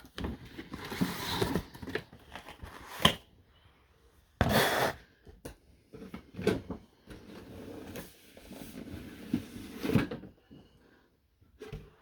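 Cardboard boxes and packaging being handled and opened: rustling, scraping and light knocks, with a louder rustling scrape about four and a half seconds in.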